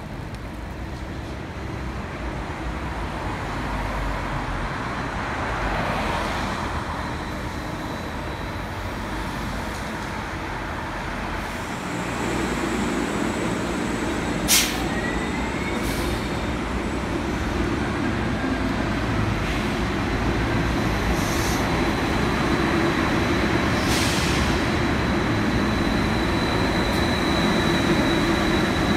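Electric trolleybuses running in city traffic: a steady street-traffic drone with a trolleybus approaching. From about twelve seconds in it becomes a louder, echoing bus-tunnel drone as the buses idle and pull away, with one sharp click partway through and a thin, steady high whine.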